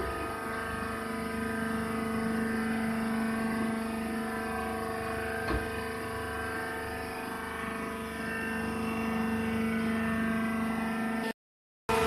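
Steady hum of a hydraulic baler's power pack, an electric motor driving the hydraulic pump, idling as it runs. One short knock about five and a half seconds in; the sound drops out briefly near the end.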